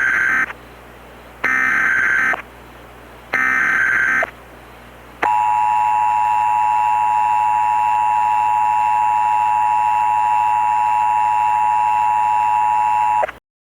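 Emergency Alert System header and attention signal: three short bursts of modem-like SAME data, each under a second long (the first already underway), then the two-tone EAS attention signal held steady for about eight seconds before it cuts off sharply. The tones mark the start of an emergency alert broadcast.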